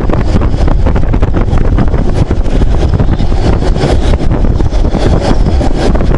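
Strong gale-force wind buffeting the microphone: a loud, constant low rumble with rapid flutter and gusts that never let up.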